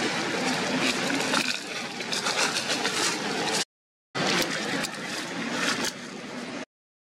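Steady outdoor noise with scattered crackles, cut twice by a brief dead silence.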